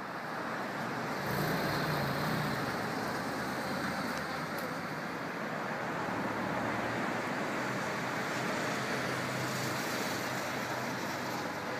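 Steady noise of city road traffic, with the low engine hum of passing vehicles swelling about a second in and again near the end.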